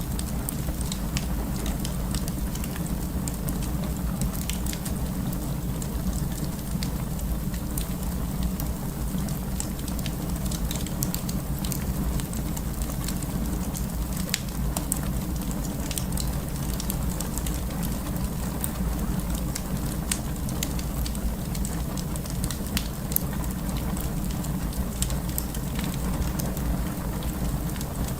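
Burning wood fire crackling: many small, irregular pops and snaps over a steady low rumble of the flames.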